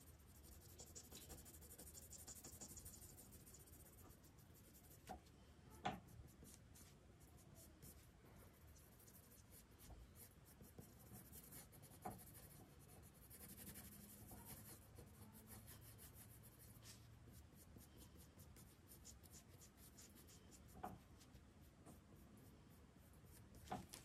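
Faint scratching of a pencil shading on paper, with a few soft taps.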